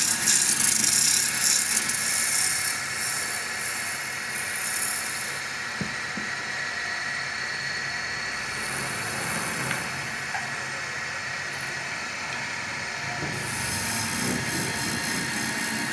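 Wood lathe spinning a chair-leg blank with a steady motor whine. A hand tool scrapes and hisses against the turning wood in stretches: strongest in the first two seconds, again around eight to ten seconds, and from about thirteen seconds on, as the wood is sanded and a chisel cuts a groove.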